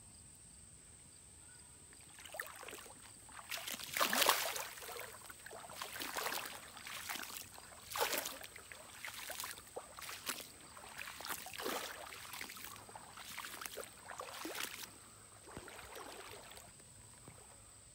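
Smallmouth bass being released by hand into shallow river water: irregular splashing and sloshing as the fish kicks free and swims off, loudest about four and eight seconds in.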